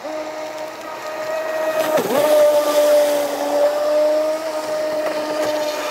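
Pro Boat Voracity-E 36-inch RC mono-hull boat running at speed on a 4S battery, its brushless electric motor giving a steady high whine that dips briefly about two seconds in and comes back up. A hiss of water spray from the hull swells through the middle.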